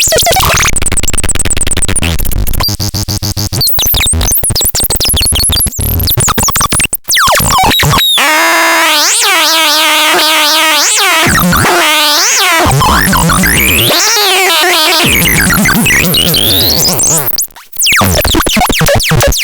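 Electronic synthesizer sounds from the LARPEL c 15: dense, stuttering buzzy noise for several seconds, then pitched tones sweeping up and down in repeated glides, with a short break near the end before the buzzing returns.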